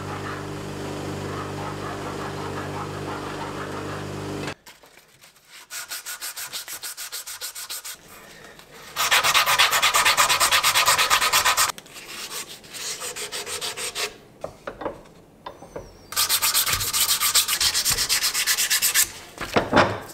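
An aluminium casting being sanded by hand: quick back-and-forth rubbing strokes in several runs, the loudest about nine to twelve seconds in and again from about sixteen to nineteen seconds in. It opens with a motor humming steadily, which stops about four and a half seconds in.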